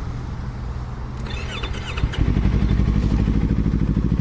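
Yamaha R3's parallel-twin engine, breathing through an open WR slip-on exhaust with the dB killer removed, running at idle. About two seconds in the exhaust note gets much louder, with a rapid, even pulse.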